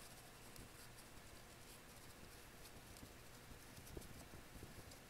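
Near silence, with faint rubbing and a few small taps as a cloth soaked in rubbing alcohol wipes flux off an instrument-cluster circuit board.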